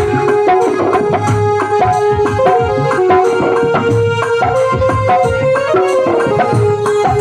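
An instrumental jagran tune: a sustained melody, which sounds like a keyboard, moves in held stepwise notes over a busy, steady rhythm on Indian hand drums.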